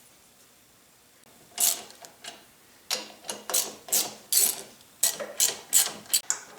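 A run of about a dozen sharp, irregular metallic clicks and clacks, starting about a second and a half in: hand tools and metal parts being worked while the planer's cutter-head motor is assembled.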